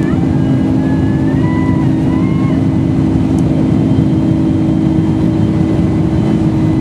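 Boeing 747-400 jet engine and airflow noise heard inside the cabin: a loud steady rumble with a low hum. A faint whine rises for the first two and a half seconds, then stops.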